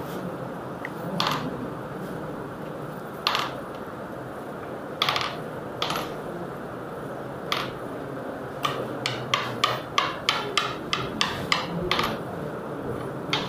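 Sharp mechanical clicks over low room hum: a few single clicks at first, then a quick run of about three a second from about two-thirds of the way through.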